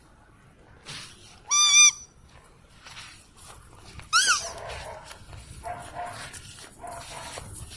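Boerboel puppies whining: two short high-pitched squeals about two and a half seconds apart, the second rising then falling, followed by a few faint short whimpers.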